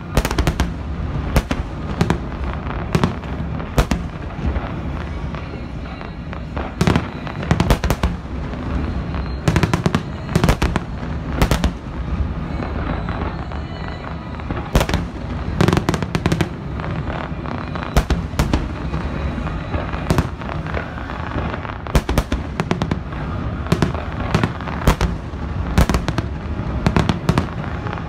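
Fireworks display: sharp bangs from bursting shells, about one every second or so at irregular intervals, over a steady background din.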